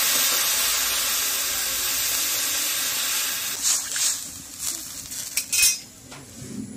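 Potato curry sizzling hard in a steel wok over a wood fire, the water just poured in hissing on the hot pan; the hiss dies down after about three seconds. Then a spatula stirs and scrapes in the wok a few times, with short clatters.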